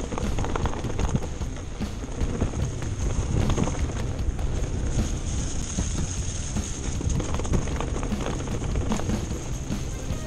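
Electric mountain bike ridden over a dirt trail: a steady low rumble of tyres and wind on the handlebar camera, with frequent rattles and knocks from the bike going over bumps.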